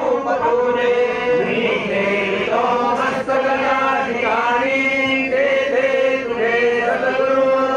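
A man chanting a Hindu puja mantra in long, drawn-out sing-song notes, with hardly a pause for breath.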